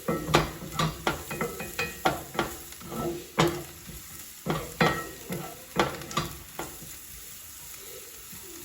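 Onion, garlic and spices being stirred in sizzling olive oil in a cast iron skillet, the utensil scraping and knocking against the pan again and again. The knocks thin out near the end, leaving mostly the faint sizzle.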